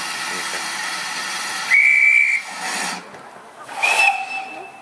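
Steam hissing from GWR 2-6-2T prairie tank locomotive 5542 standing ready to depart. It is cut by two whistle blasts: a short steady one about two seconds in, and a second, two-toned one near the end.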